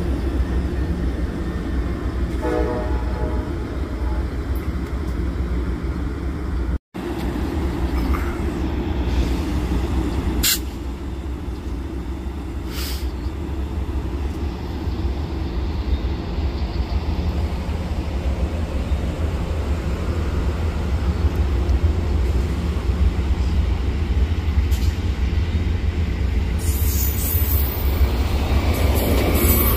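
Bilevel Amtrak passenger cars rolling past close by: a steady low rumble of steel wheels on the rails, with a few sharp clicks. The sound drops out for an instant about seven seconds in.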